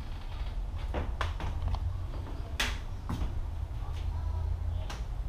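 Footsteps and small knocks on old wooden floorboards, a handful of irregular thuds and creaks with the loudest about halfway through, over a steady low rumble.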